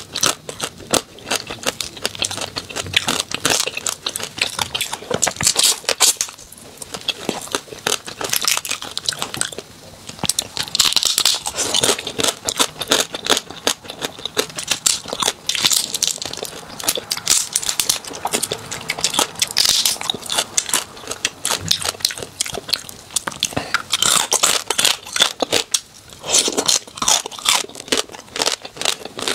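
Close-miked crunching and crackling of small whole spicy crabs, their shells cracked apart by hand and chewed, with brief pauses between bites.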